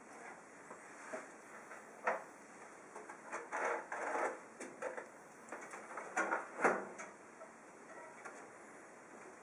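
Irregular handling noises from unboxing a PC case: short knocks, scrapes and rustles of packaging and case parts. The loudest come as a pair of knocks about six and a half seconds in.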